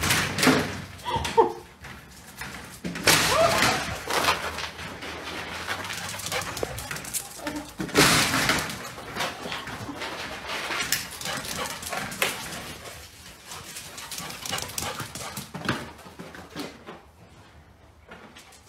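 Dog whimpering and barking in irregular short bursts, the loudest about three and eight seconds in.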